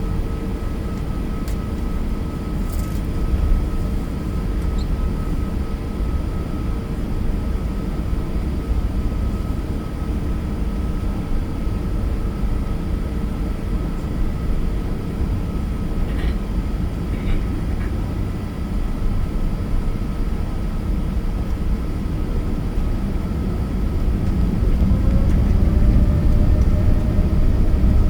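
Airbus A380 jet engines running with a steady low rumble and a steady high whine. Near the end a whine rises in pitch and the rumble grows louder as the engines spool up.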